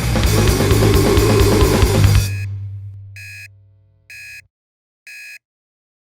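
Rock band with a drum kit playing loudly, then stopping abruptly about two seconds in while a low bass note rings out. An electronic alarm clock then beeps three times, about a second apart.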